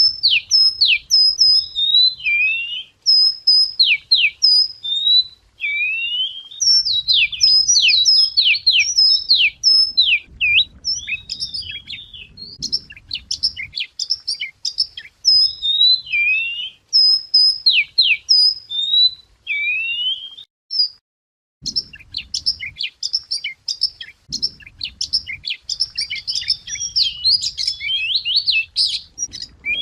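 Wagtail singing a loud, varied song of quick sweeping whistles and twitters, with a brief pause about two-thirds of the way through. This is the kind of song recording played as a lure to attract wagtails.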